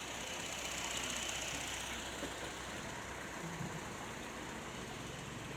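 Steady low engine hum, like a vehicle running, under an even background hiss.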